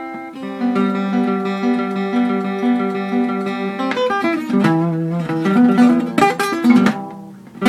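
Acoustic guitar fingerpicked: a low note rings under a higher note picked about twice a second. From about four seconds in comes a quicker run of single notes, the last left to ring out.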